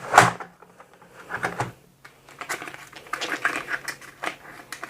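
Handling noise as a keyboard's USB cable is taken out of its cardboard box: scattered rustles, clicks and taps. There is one sharper knock just after the start, and a busier run of small clicks from about halfway through.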